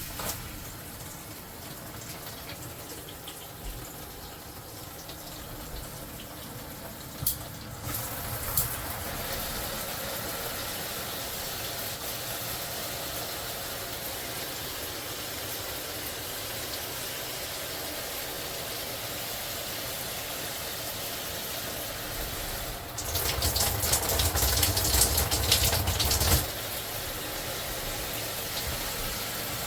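Water running steadily, with two short clicks about seven and eight and a half seconds in, and a louder gushing stretch for about three seconds near the end.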